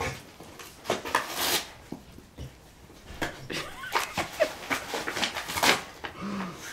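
A cat batting at a hanging fir branch: an irregular string of short rustles and swishes from the needles and twigs.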